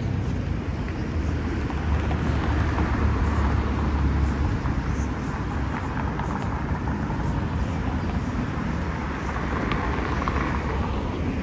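City street traffic: cars passing close by, with a steady rumble of engines and tyre noise on the wet road. It swells about two seconds in and again near the end.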